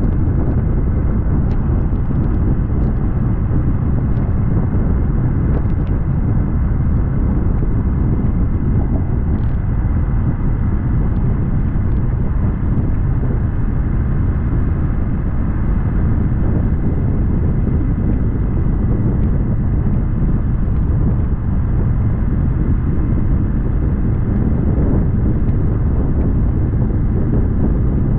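Steady low rumble of a motorcycle riding at speed: the Royal Enfield Interceptor 650's parallel-twin engine running, mixed with wind and road noise on the bike-mounted microphone.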